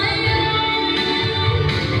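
A girl singing a song into a handheld microphone over an instrumental backing track.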